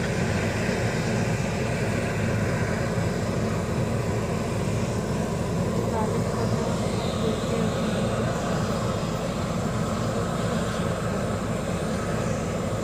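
Steady low engine rumble from the airport apron, where an aircraft is under tow, heard muffled through terminal window glass.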